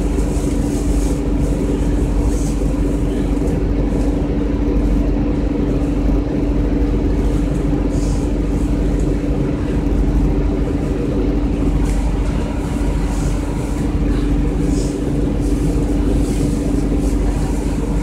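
Cabin sound of a 2002 Orion VII CNG transit bus standing with its engine running: a steady engine drone with a constant hum over a low rumble, even in loudness throughout.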